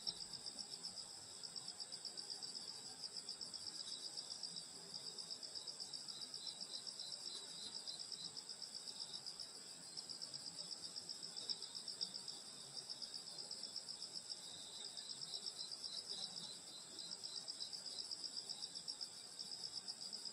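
Chorus of summer grass insects: several high, rapidly pulsing trills overlapping, going on steadily.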